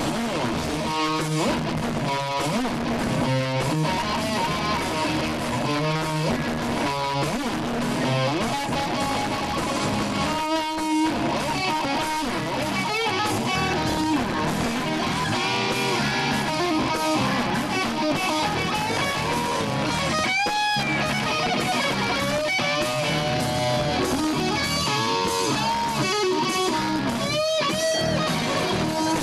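Live rock band playing, led by electric guitar with bent notes, over a bass guitar.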